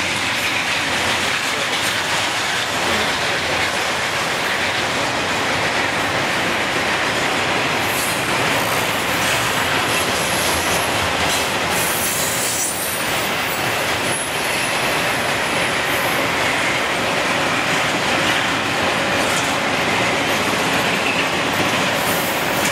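Double-stack intermodal freight train's well cars rolling steadily past: a continuous rumble of steel wheels on rail with clickety-clack over the rail joints. High-pitched wheel squeal rises in the middle and again near the end.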